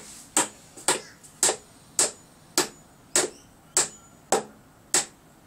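Hammer driving a nail, struck in a steady, even rhythm of about two blows a second, some ten strikes in all.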